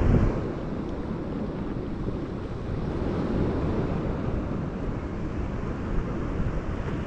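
Wind buffeting the microphone over the wash of sea waves on the shore: a steady, uneven low rumble with a stronger gust right at the start.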